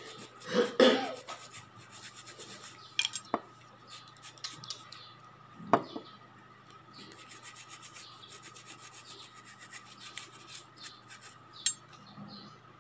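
Soft rubbing and fine scratching as fingernails are worked on by hand, with a few sharp clicks of small manicure tools.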